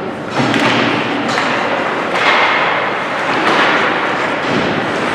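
Rink noise during an ice hockey game: a steady din with several thuds about a second apart.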